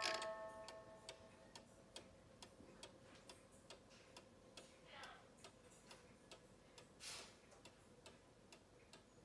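German-made cuckoo clock's movement ticking steadily and faintly, about two to three ticks a second, as the last notes of its music-box tune die away in the first second or so.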